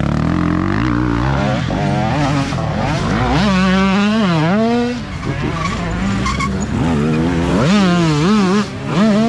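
Several dirt bike engines revving hard as riders pass one after another up a trail, the pitch climbing and dropping sharply with throttle and gear changes, loudest about four seconds in and again near the end.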